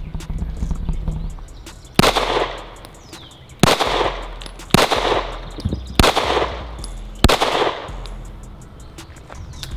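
Five 9mm pistol shots from a Springfield Echelon 4.0C, fired at an uneven pace about a second to a second and a half apart, each followed by a short echo.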